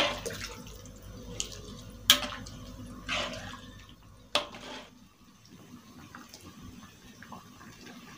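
A ladle stirring a thick coconut-milk green bean curry in a metal wok: liquid sloshing, with sharp knocks of the ladle against the pan at the start, at about two seconds and at about four and a half seconds. It goes quieter after about five seconds.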